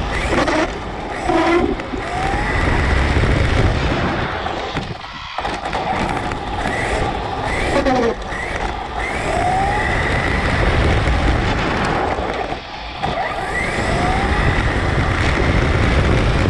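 Brushless electric RC car heard from its onboard camera: a motor whine that repeatedly rises and falls in pitch with the throttle, over steady tyre and wind noise on rough asphalt. The sound drops off briefly twice, about five seconds in and again near thirteen seconds.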